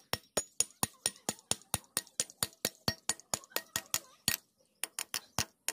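Hammer rapidly striking a steel base plate bolted to a wall: sharp metallic clinks about four to five a second. The strikes break off briefly after one louder blow a little past four seconds in, then resume.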